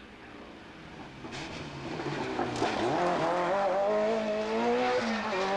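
Rally car's engine approaching at speed, growing louder and revving up hard, with a brief drop in revs about five seconds in, as at a gear change or lift.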